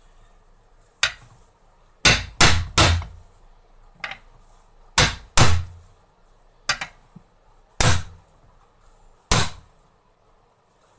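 Hammer striking a steel press mandrel about ten times, at an uneven pace with some blows in quick pairs. Each blow is a sharp metallic knock with a short ring as it drives a bearing outer race into the aluminium gearbox housing of a manual transmission.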